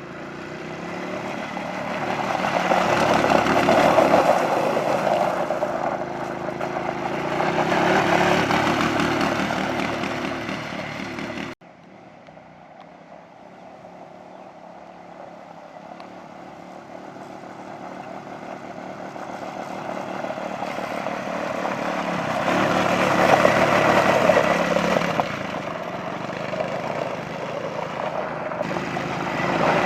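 Small 110cc youth ATV engines held at the low-speed mode's rev limit, growing louder and fading as the quads pass several times. The sound drops abruptly about twelve seconds in, then builds up again.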